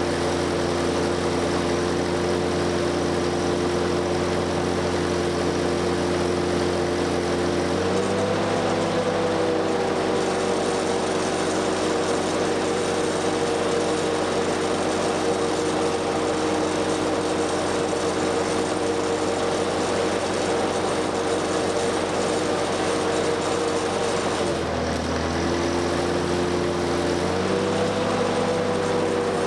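The four-cylinder gasoline engine of a 1963 Lincoln SA-200 welding generator running steadily, its note held lower under welding load and stepping up when the arc is broken, about 8 seconds in and again near the end after a brief drop. A stick-welding arc crackles and hisses over it at the start and again briefly near the end.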